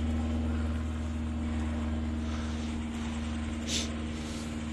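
Steady low drone of a car interior, engine and road hum, with one short sniff about three and a half seconds in.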